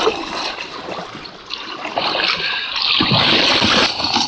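Canoe paddle strokes splashing in shallow river water, with water trickling past the hull. From about halfway through, a louder rustling hiss joins as leafy willow branches brush along the canoe.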